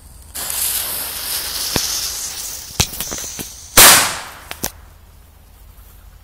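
A firecracker's fuse is lit and burns with a steady hiss for about three seconds, then the firecracker goes off with a single loud, sharp bang about four seconds in.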